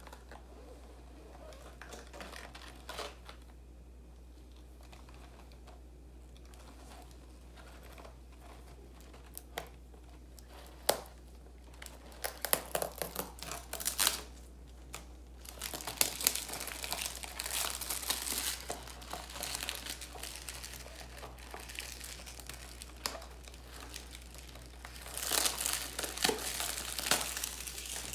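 Clear cellophane wrap being peeled and torn off a cardboard tea box, crinkling in bursts with a few sharp clicks. Quiet handling for the first several seconds, then crinkling that grows dense and keeps on for a while, with another burst near the end.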